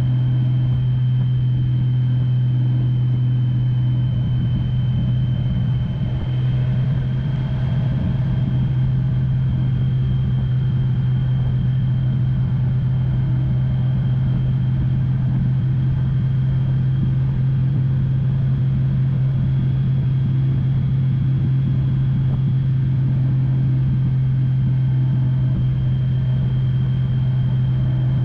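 Touring motorcycle cruising at a steady speed: a constant low engine drone under rumbling wind and road noise.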